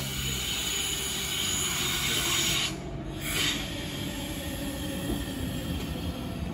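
NSW TrainLink V-set electric double-deck intercity train approaching on a curved track, its wheels squealing and hissing against the rails over a low rumble, growing louder. The high squeal dips briefly about three seconds in.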